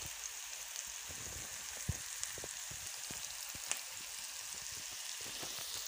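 Onions and spices frying in oil in a pan: a steady sizzle with a few sharp pops.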